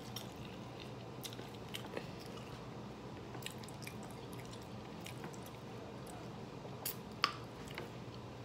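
Close-up chewing of fries, with soft wet mouth clicks and smacks; a couple of sharper clicks shortly before the end.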